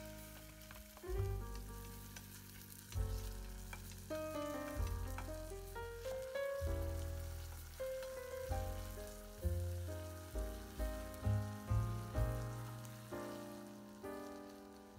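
Hijiki seaweed, carrot strips and deep-fried tofu sizzling as they are stir-fried in oil in a pot and stirred with wooden chopsticks. Background music with a slow melody of changing notes plays over it.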